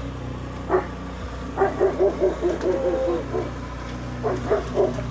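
Dog barking in quick runs: one bark early, then a rapid string of about a dozen barks, several a second, and a few more near the end.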